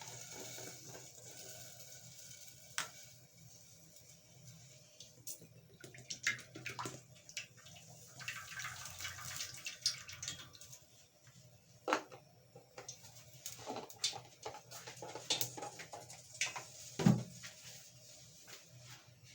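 Kitchen handling noises: scattered knocks and clinks of a cooking pot and utensils, with a short stretch of liquid-like pouring hiss around the middle and one louder thump near the end.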